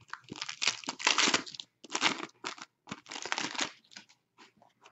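Foil wrapper of a 2016-17 Artifacts hockey card pack being torn open and crinkled in a run of rustling bursts for about four seconds, then a few light ticks near the end.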